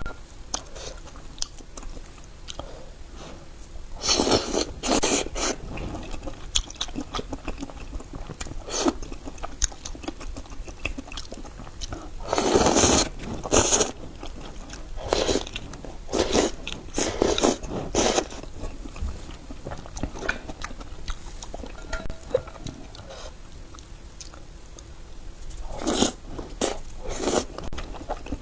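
Eating large raw oysters: bites and chewing, with shell scraping, in several louder bursts of a second or two and quieter chewing between.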